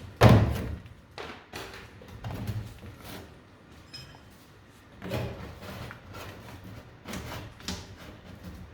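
Hand work on a car's steel bodywork: a loud thud about a quarter second in, then irregular knocks and scrapes, as old sound deadener is taken off the inner wheel arch.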